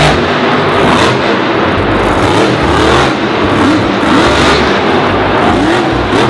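Monster Jam truck Dragon's supercharged V8 engine revving hard, its pitch rising and falling over and over within a loud, rough engine roar.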